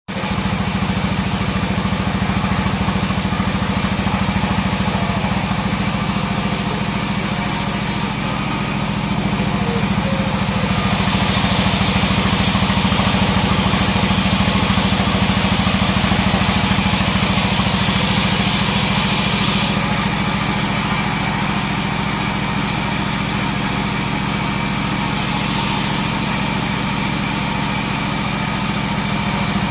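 42-inch sawmill bandsaw running with a steady, loud drone. For about ten seconds in the middle a louder high hiss rises over the drone and then drops away, as the blade cuts through a teak log.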